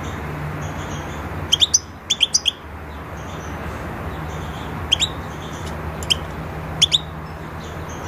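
European goldfinch calling in short, sharp, upward-sweeping chirps, in quick clusters of three or four about one and a half seconds in, then pairs near five and seven seconds. A steady low hum runs underneath.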